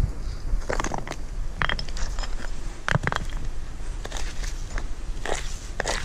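Fire-ring stones being moved by hand, clacking and scraping against one another, with about six separate knocks.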